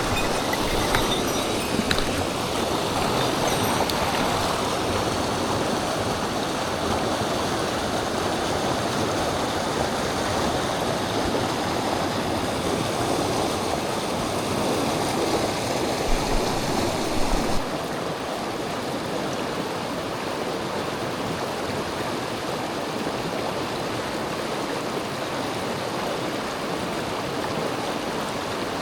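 Mountain stream rushing over rocks, a steady loud rush of water. A few low knocks come just before it turns abruptly duller and a little quieter about two-thirds of the way in.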